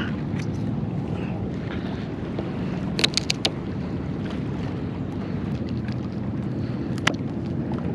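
Sharp snips of shears cutting up a live green crab for bait: a quick run of four clicks about three seconds in and one more near the end. Under them, a steady low rumble of wind on the microphone and water.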